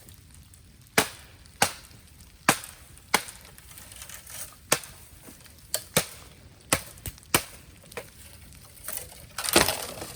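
Bamboo cracking: about a dozen sharp woody knocks spaced half a second to a second apart, then a longer, louder crackling burst near the end.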